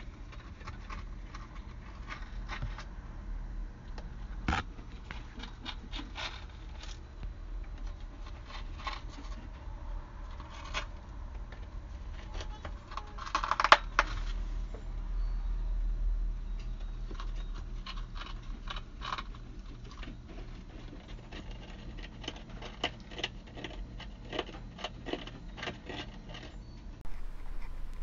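Parrots gnawing and chewing the wooden beams inside a wall with their beaks: irregular scraping and clicking, with a louder flurry about halfway through, over a steady low hum.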